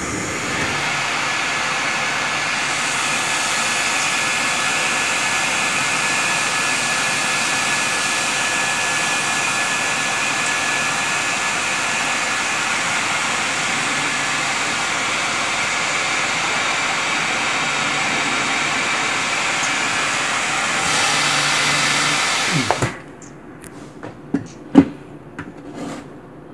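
Steady whirring of an electric motor with rushing air, which cuts off with a brief spin-down about 23 seconds in. A few light clicks and knocks follow.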